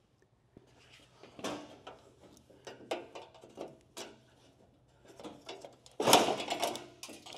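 Irregular metallic clanks, knocks and scrapes as a car's steel fender and its fasteners are worked loose and handled, getting busier and louder about six seconds in.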